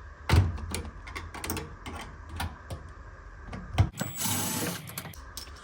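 Screwdriver and metal parts clicking and knocking as the screws come out of a Frigidaire washer's door lock and the lock is worked loose. There are two sharp knocks, one right at the start and one a little before four seconds in, then about a second of scraping.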